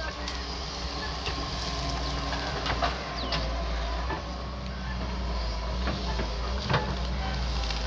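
A large diesel engine running steadily at a constant speed. A few bird chirps and sharp clicks sound over it, one chirp about three seconds in.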